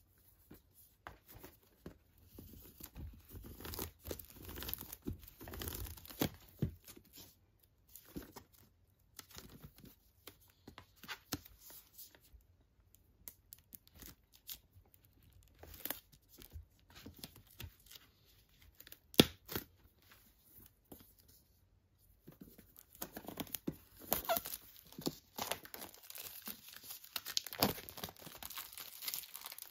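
Clear plastic shrink wrap being torn and peeled off a boxed disc set, crinkling and crackling in irregular spurts, with one sharp click a little past the middle and the crinkling busiest near the end.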